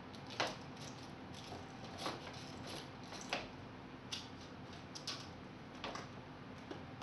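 A kitten rummaging in a paper packet and plastic bags, making irregular crinkles and crackles about once a second.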